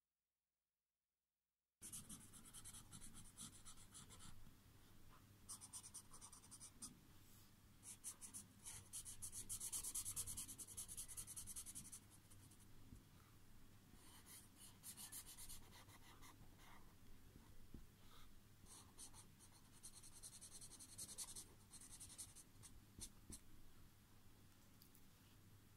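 Faint scratching of a felt-tip permanent marker rubbing back and forth on paper as an area is coloured in, in short irregular strokes that start about two seconds in. A steady low hum lies under it.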